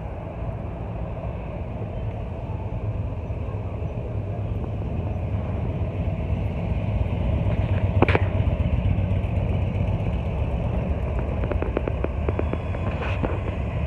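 Police motorcycle engines running with a steady low rumble as the bikes pass, growing louder toward the middle. There is one sharp click about eight seconds in and a few lighter clicks near the end.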